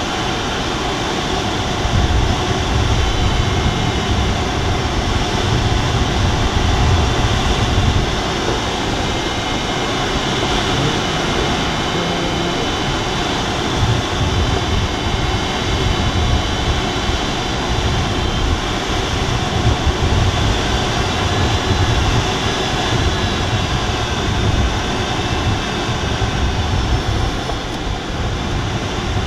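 Steady rush of air over the canopy inside the cockpit of an Alisport Silent-in motorglider in gliding flight, with a low, unsteady rumble and faint high whistling tones.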